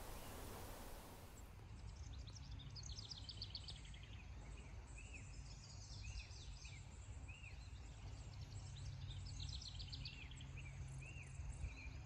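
Faint birdsong from several birds: short repeated arched chirps and quick runs of high, rapid notes, over a low steady rumble.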